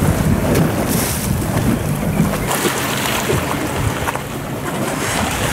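Wind buffeting the microphone over the wash of sea water around a fishing boat. The low rumble of the wind eases about two and a half seconds in.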